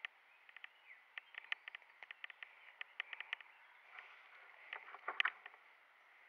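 Faint airsoft gunfire: scattered sharp clicks, some in quick runs of three or four about three seconds in. A louder crackle comes just after five seconds.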